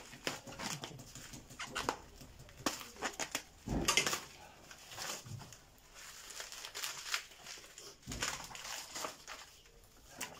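Rigid plastic food tray crackling and clicking as frozen meat is worked out of it by hand, with a louder knock about four seconds in.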